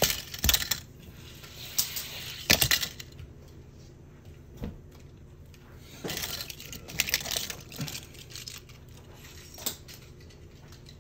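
Hot Wheels die-cast toy cars clattering down a plastic track and landing, heard as a series of sharp clicks and rattles. The loudest clatter comes about two and a half seconds in.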